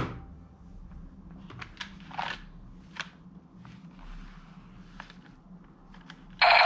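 Plastic toy guns being handled: scattered light clicks and taps of hard plastic parts, with a short scraping rustle about two seconds in. Just before the end a loud, steady electronic buzzing sound effect switches on abruptly.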